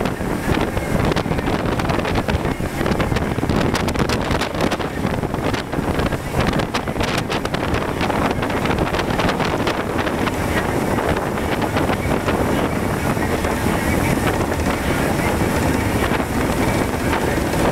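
Motorboat running at speed: a steady engine and churning wake, with heavy wind buffeting on the microphone.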